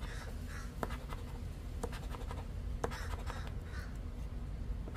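Poker-chip scratcher rubbing the coating off a paper scratch-off lottery ticket in short scratchy strokes, with a few sharp ticks about a second apart.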